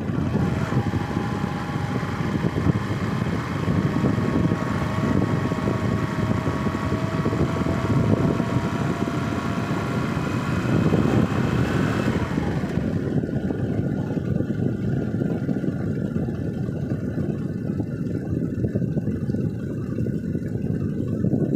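A vehicle running on the move: a steady low rumble, with a faint whine that slowly falls in pitch over the first twelve seconds. About twelve and a half seconds in, the higher hiss drops away.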